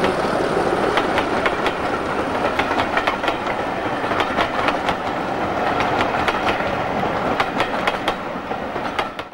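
Railway passenger coaches rolling past close by: an uneven clickety-clack of wheels over rail joints above a steady rumble. The sound cuts off abruptly at the very end.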